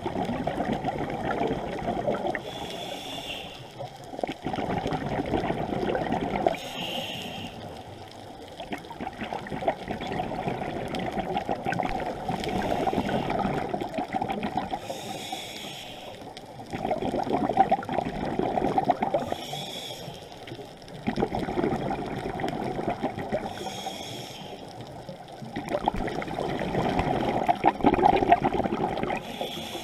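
Scuba diver breathing through a regulator underwater: a short hiss on each inhale, then a long rush of bubbling exhaust on each exhale, about one breath every four seconds.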